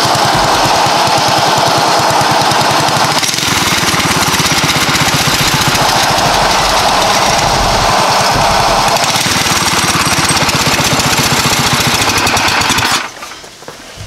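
Go-kart's small gas engine running at full throttle during a burnout, a rapid pulsing engine note mixed with the hiss of the rear tire spinning on asphalt. It cuts off suddenly near the end.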